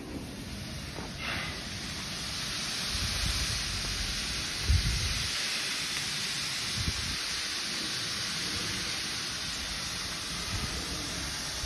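Steady hiss of a standing steam locomotive letting off steam, heard from a distance, with a few gusts of wind buffeting the microphone.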